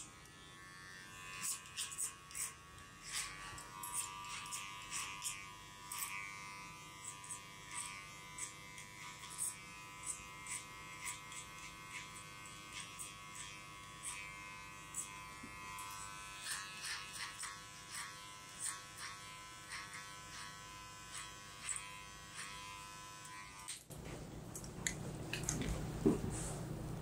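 Electric hair clipper running with a steady buzz, with frequent small clicks as it works through hair. It cuts off about 24 seconds in and a louder rustling takes over.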